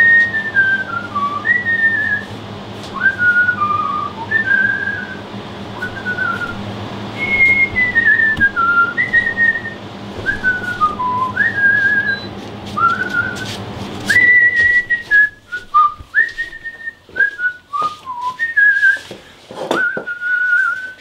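A person whistling a tune in short notes, many sliding downward. A steady low hum lies under the first part and stops about two-thirds of the way through, leaving the whistling clearer with a few light clicks.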